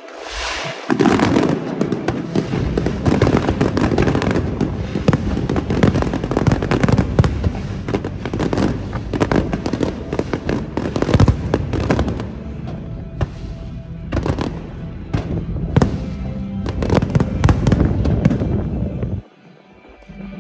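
Fireworks display: a dense, continuous barrage of shell bursts and crackling heard from a few hundred metres away, building about a second in and cutting off abruptly near the end.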